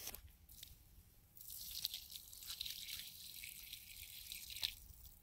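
Water poured from a bottle in a thin stream into a hole in packed snow, splashing faintly. The pouring starts about a second and a half in and stops shortly before the end.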